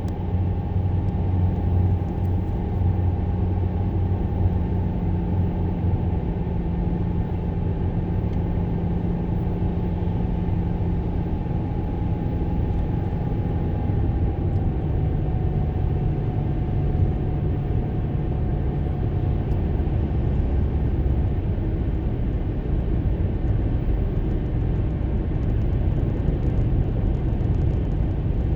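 A car driving on the road, heard from inside the cabin: steady engine and tyre noise, with the engine hum dropping slightly in pitch about halfway through.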